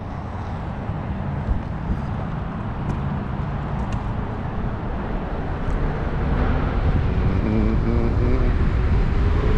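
Wind noise and rumble on the microphone of a rider moving fast on an electric unicycle, slowly growing louder, with a faint tone rising in pitch near the end.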